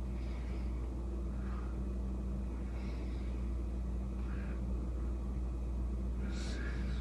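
Steady low background hum, with faint short higher-pitched sounds every second or two; the loudest of these comes near the end.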